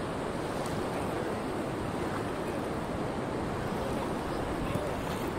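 Steady wash of gentle surf and wind at the water's edge, an even hiss with no distinct splashes or knocks.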